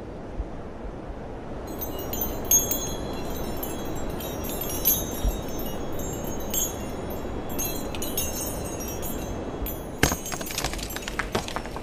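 Metal chimes tinkling over a steady low rush. The high, scattered ringing starts about two seconds in, and a flurry of sharper jingling strikes comes near the end.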